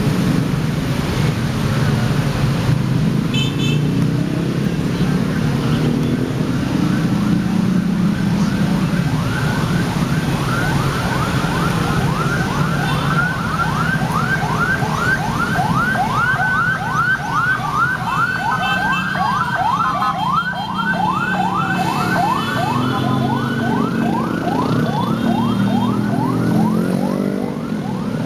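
Siren yelping in rapid rising sweeps, about two and a half a second, starting about eight seconds in, with a second siren tone gliding down partway through, over a steady traffic rumble.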